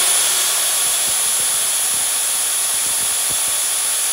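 Small electric motor running at full speed under power, with a steady high-pitched whine over a rushing hiss.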